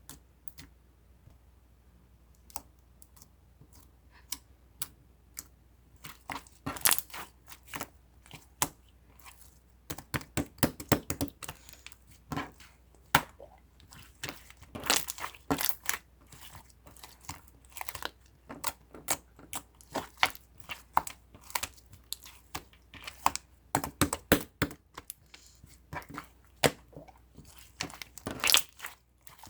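Slime being squished, pressed and stretched by hand, giving many sharp clicks and pops. The pops are sparse for the first few seconds, then come in dense clusters.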